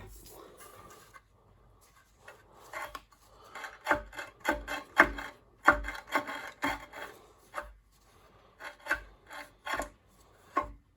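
Irregular short scrapes and clicks, several a second with a few louder ones, from the small Honda pressure-washer engine being worked and turned over by hand; the first couple of seconds are nearly quiet.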